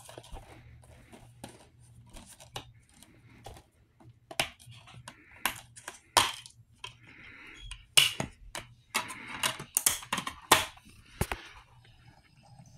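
Plastic DVD case and disc being handled and opened: a run of sharp plastic clicks and snaps with some rustling, the loudest snaps about eight and ten and a half seconds in.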